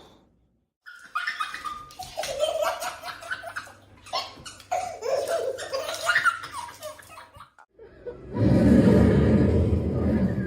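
Hearty human laughter, from about a second in for several seconds. After a break near the end, a loud rough noise takes over.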